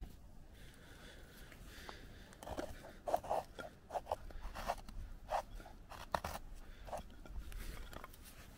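Knife blade shaving thin curls off a dry wooden stick to make a feather stick: a run of short, uneven scraping strokes that starts about two seconds in.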